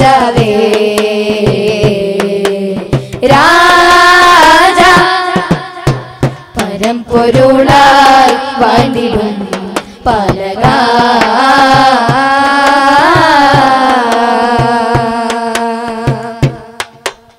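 Madh devotional music: a melody of long, wavering held notes over a steady drum beat. Near the end the melody fades, leaving quick drum strokes.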